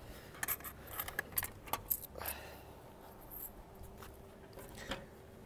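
Vending machine change return and dispenser flap being handled: a quick run of sharp metallic clicks and clinks from about half a second to two seconds in, then a single click near the end.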